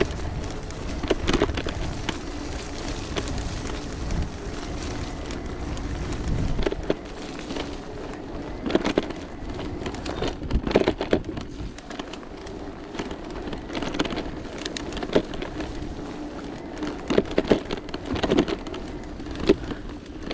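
Mountain bike riding down a muddy, slippery trail: tyres working through mud with repeated sharp knocks and clatter from the bike over bumps, coming in clusters, and wind rumble on the microphone in the first several seconds.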